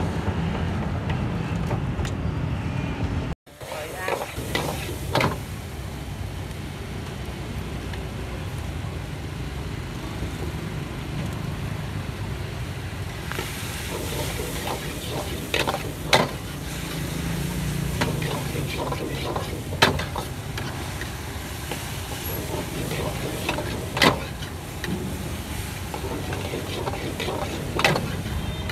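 Squid and shrimp stir-frying in a wok over a gas burner: a steady sizzle, with the metal spatula scraping the pan and now and then striking it in sharp clangs, about five loud ones in the second half.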